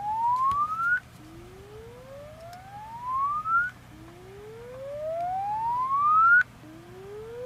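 A Samsung Galaxy J6's earpiece plays the hidden test menu's earpiece test: a pure tone that rises steadily in pitch over about two and a half seconds, cuts off, and starts again low, repeating like a slow siren. The test plays the tone this way to show that the earpiece works.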